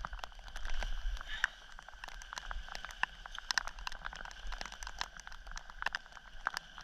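Rain hitting close to the microphone in many irregular sharp taps, over a low wind rumble.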